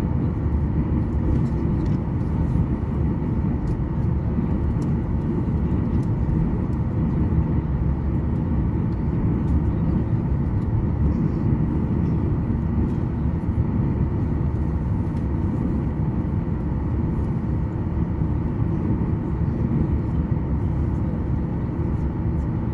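Steady low rumble inside a jet airliner's cabin as it taxis, the engines running at low power, with a faint steady whine above the rumble.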